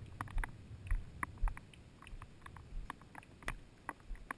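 Footsteps on a wet concrete pool deck, soft thuds about twice a second, with scattered sharp ticks and taps over them.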